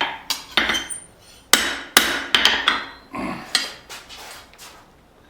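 A hammer strikes a leaf-spring steel knife blade with irregular blows to straighten it, each blow ringing briefly. The blows thin out after about four seconds.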